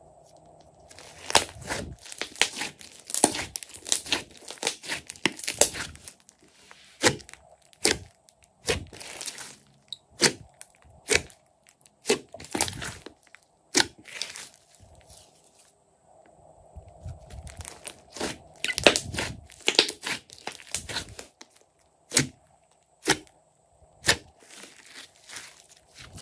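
Glossy slime being poked, squeezed and stretched by hand, giving dense runs of sharp crackles and pops with short pauses, then a few single pops near the end.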